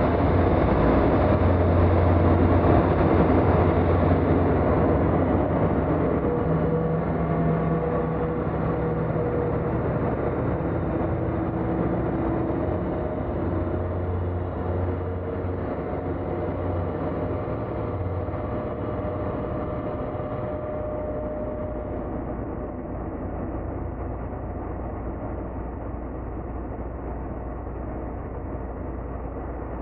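Dark ambient noise drone: a dense rumbling wash over a strong low hum, with faint sustained tones in the middle. It slowly fades, and its top end darkens in two steps, near the start and about two-thirds of the way through, when the hum gives way to a deeper rumble.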